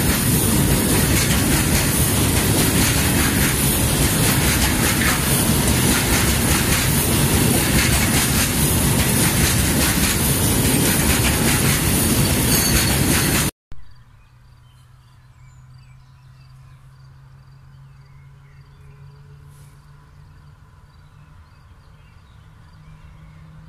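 Loaded freight train of open coal wagons rolling past close by: a loud, steady rumble of wheels on rail with clickety-clack, cut off abruptly about 13 seconds in. After that, a much quieter low hum from a distant electric freight locomotive approaching, growing slightly louder toward the end.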